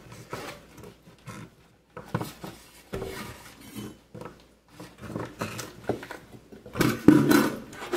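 Raw carrot pieces dropped by hand into a slow cooker, a scatter of light knocks and clunks, with a louder short sound with a pitch to it near the end.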